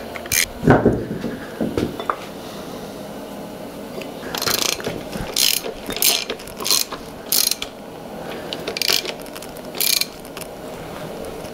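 Hand socket ratchet clicking in short bursts, several times, as the bolts of a bracket are run in on an engine block.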